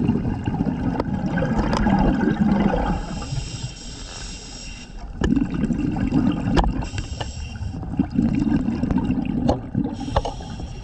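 Scuba diver breathing through a regulator, heard underwater: exhaled bubbles bubbling out low alternate with the higher hiss of each inhalation, about one breath every five seconds. Scattered sharp clicks run through it.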